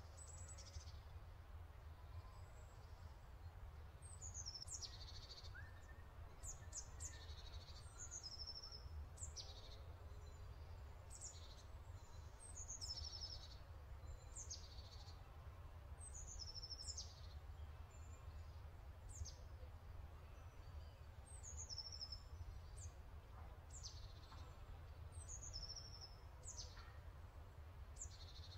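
Faint birdsong: small birds giving short, high, quick downward chirps, often several in a quick run, recurring every second or two, over a steady low hum.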